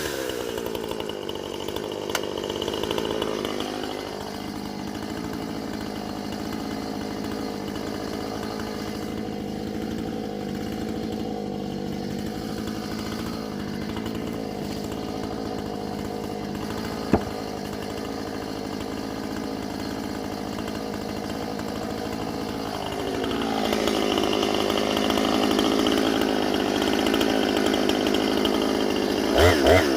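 Two-stroke Husqvarna chainsaw running steadily at high engine speed, getting louder from about 23 seconds in. There is a single sharp click about 17 seconds in, and quick throttle blips near the end.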